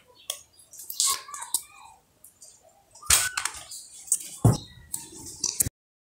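A few irregular sharp clicks and short scrapes from hands handling things at a fridge, with a brief dead gap near the end.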